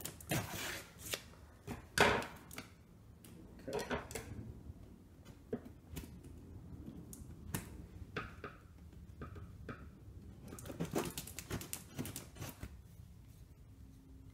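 Hands working at the packing tape on a cardboard toy box: irregular scrapes, rustles and knocks on the cardboard. The loudest comes about two seconds in, with another cluster around eleven seconds.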